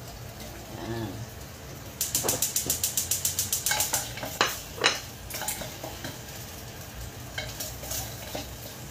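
Wooden spoon stirring ginger slices in hot oil in a clay pot. A rapid run of strokes, about ten a second, lasts about two seconds, followed by a few sharper knocks of the spoon against the pot, with light sizzling of the oil.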